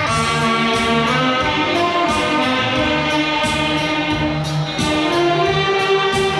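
Saxophone ensemble playing a slow melody in sustained notes over a low accompaniment.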